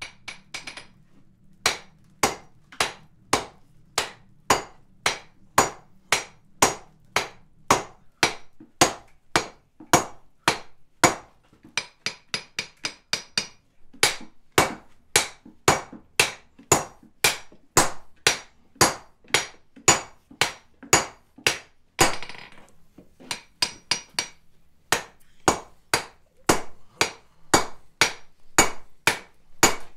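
Hammer blows on a red-hot steel bar on an anvil, struck in a steady rhythm of a little under two blows a second, with a short break about halfway through and another about two-thirds in. The bar is being drawn down at one end to a 1-inch-square stub.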